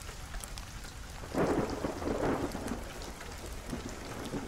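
Steady rain ambience, with a roll of thunder swelling about a second and a half in and dying away by about three seconds.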